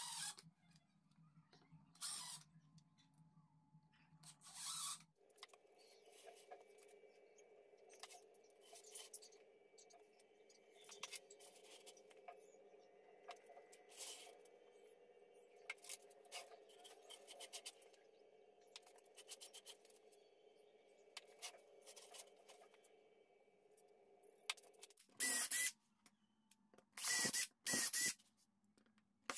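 Cordless drill-driver (Makita DDF485) drilling into an aluminium bar on plywood in a few short bursts near the end. Earlier there are scattered light clicks and brief bursts from work on the bench, over a faint steady hum.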